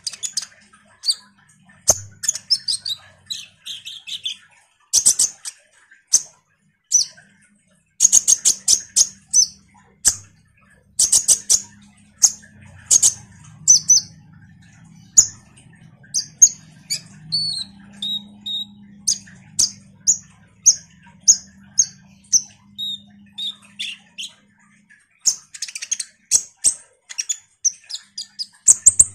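A kolibri ninja sunbird (konin) calling non-stop: a string of sharp, high chirps broken by quick rattling bursts of rapid notes.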